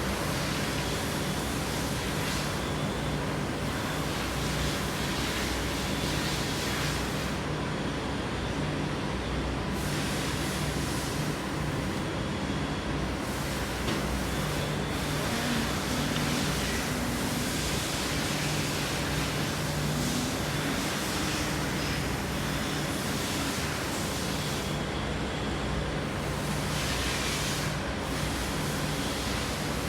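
Steady rushing noise with a low hum underneath, holding level throughout, with no distinct knocks or tool strikes standing out.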